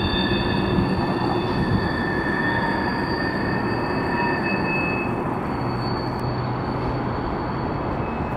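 Freight train rolling away, its steel wheels squealing on the rail over a steady rumble; the squeal fades out over the first few seconds and the rumble carries on.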